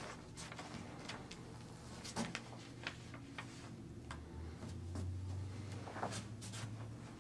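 Scattered light clicks and taps, about one or two a second, over a low hum that gets louder in the second half.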